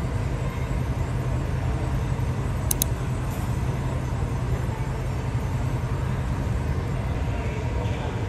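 Steady low rumble of airport noise heard from inside the terminal through the window glass, with two faint clicks about three seconds in.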